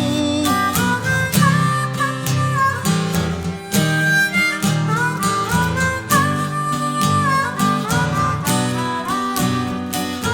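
Instrumental break in a love song: a harmonica plays the melody with bent notes over a strummed acoustic guitar.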